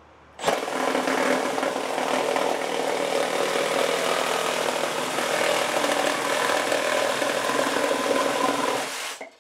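Makita DJR187 18V brushless cordless reciprocating saw cutting through a thick timber beam. It starts suddenly about half a second in, runs steadily and stops just before the end.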